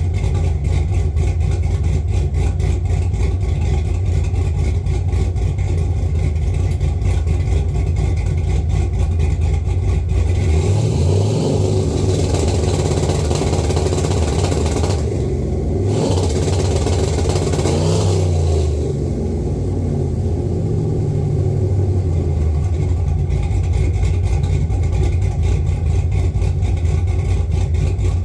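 Cammed 6.0 LS V8 idling with a choppy lope. From about ten seconds in it is revved up and down several times.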